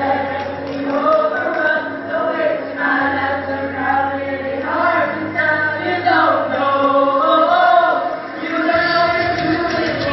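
A group of boys' voices singing together in harmony over a low held note. Near the end the low note stops and a fuller backing comes in.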